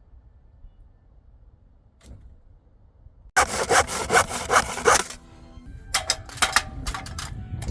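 A saw cutting through a wooden framing board in quick back-and-forth strokes, about five a second. It starts suddenly about three seconds in and ends with a few slower, separate strokes.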